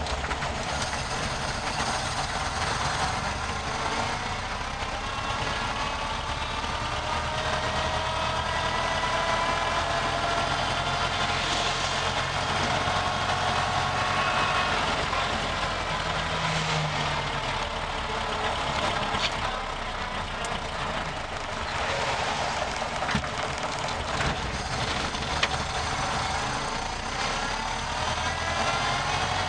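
1930 Ford Model A pickup's four-cylinder flathead engine running while driving, heard from inside the cab. Its note climbs as the truck picks up speed in the first several seconds, and again near the end. The engine is loud and raw because the carburetor has no air cleaner.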